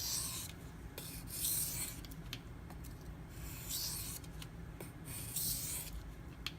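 Steel knife blade (an M390 Benchmade Mini Griptilian) being stroked freehand across a wet waterstone. It makes a run of separate hissing scrapes, one with each pass, with short pauses between them.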